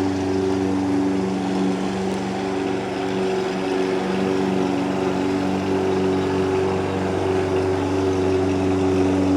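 An engine running steadily, a low hum with several steady tones.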